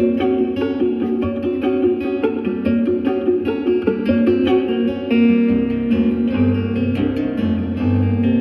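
Lab Guitar, an old Eko acoustic guitar fitted with extra bass and treble strings, played fingerstyle in a flowing run of plucked notes. Low bass notes join about halfway through.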